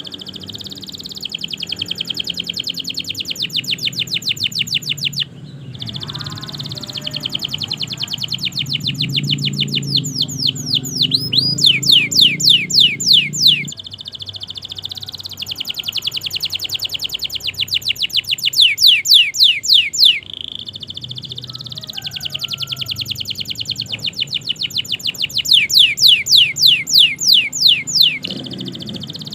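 Domestic canary singing long phrases of fast, rapidly repeated trilled notes, each phrase several seconds long with brief breaks between them. The loudest parts are sweeping trills a little before the middle and again near the end.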